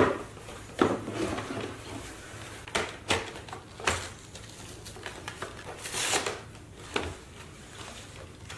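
Hard plastic toy-food basket and its lid knocked and clattered as they are handled, in scattered separate knocks, with a longer rustle of a clear plastic wrapping sheet a little past the middle.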